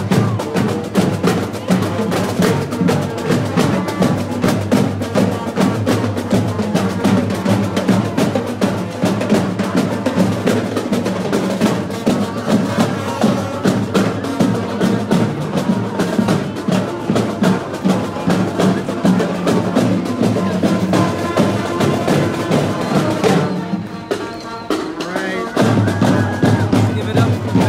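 Marching band playing outdoors, led by a drumline: snare and bass drums beat a fast, steady rhythm over sustained low notes. The drumming thins out briefly about 24 seconds in, then comes back in full.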